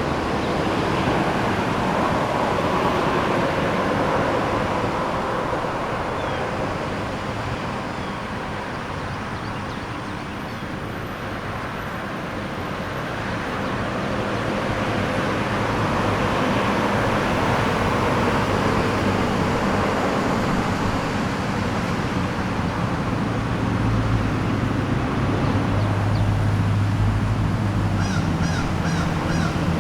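Road traffic on a country-town street: cars passing in a continuous wash of tyre and engine noise that eases off about a third of the way in and then builds again. Near the end a lower, steady engine hum from a heavier vehicle comes in.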